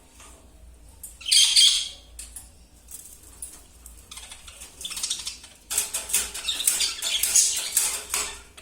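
Lovebird giving one loud, shrill squawk about a second in, then from about two-thirds of the way a quick, busy run of rattling and scratching as it works at the cage.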